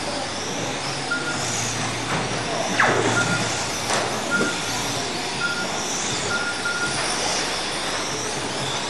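Several 1/12-scale electric RC pan cars racing, their motors whining high and rising and falling in pitch as they speed up and slow down. Short identical beeps sound every second or so, typical of a lap-counting system registering cars as they cross the line.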